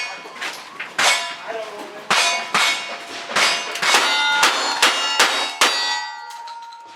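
Cowboy action shooting: about ten rapid gunshots, each followed by the ring of a steel target being hit. The shots come about a second apart at first, then faster, and a last target's ring fades out near the end.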